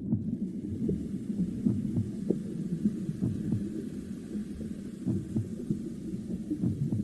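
Mother's heartbeat as heard from inside the womb: a low, muffled, steady pulsing with a whooshing hum.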